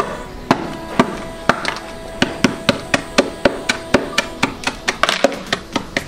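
A thick block of ice being struck again and again to break it. The sharp knocks come about twice a second at first, then about four a second, and the ice is too thick to give way. Background music plays underneath.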